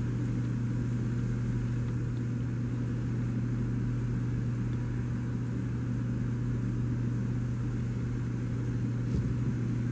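Steady low hum of running machinery, even and unchanging.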